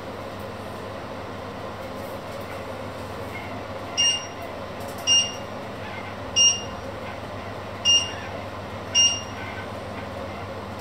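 Five short electronic beeps from a cooktop's touch controls, one for each button press, spaced unevenly about a second apart over a steady background hum.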